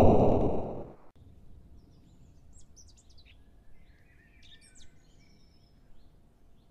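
A loud, noisy burst dies away about a second in. After it come faint outdoor ambience and birds chirping and tweeting now and then.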